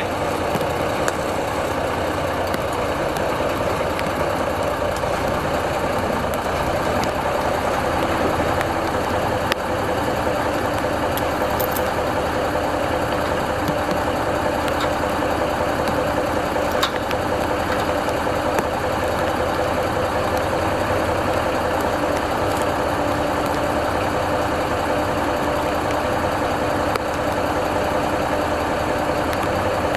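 Heavy diesel engine of a 1974 Kenworth self-loading log truck running steadily, with a few faint clicks and knocks.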